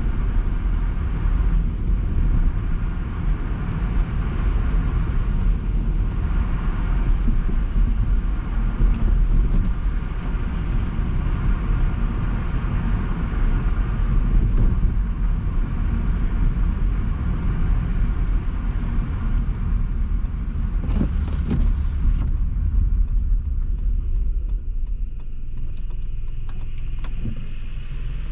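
Car driving along a road: a steady low road-and-tyre rumble with a higher hiss over it, the hiss dropping away about three-quarters of the way through, and a couple of brief knocks shortly before.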